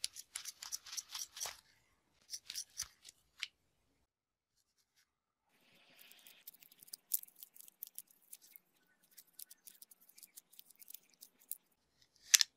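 Scissors snipping through a rubber-coated work glove in two runs of quick cuts, followed by faint rustling and small clicks as the cut glove fingertips are worked onto the jaws of a locking C-clamp, and a sharp click near the end.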